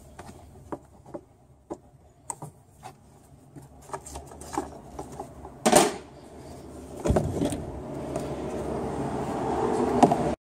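Plastic air filter box knocking and clunking as it is worked up out of its rubber mounting grommets: a string of small clicks, then two louder knocks about six and seven seconds in. A steady background noise builds toward the end.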